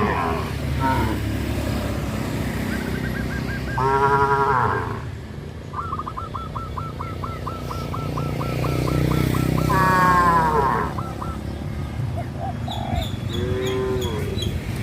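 Cattle calling: three short moos, about a second each, near the start, the middle and the end, over a steady low rumble. A fast, even run of chirps comes between the first two calls.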